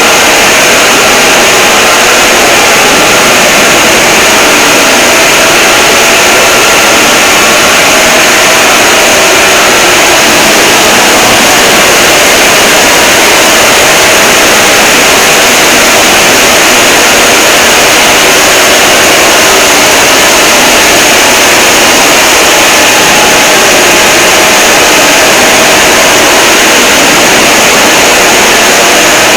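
Mock emergency alert alarm pushed into extreme clipping, so that it plays as a steady wall of harsh distorted noise at full loudness, with faint wavering tones buried in it.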